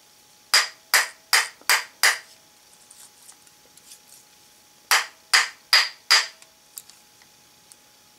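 Light hammer taps driving the planet gear pins of a pull gear speed reducer into their carrier plate: five quick taps, a pause of about three seconds, then four more, each with a faint brief metallic ring.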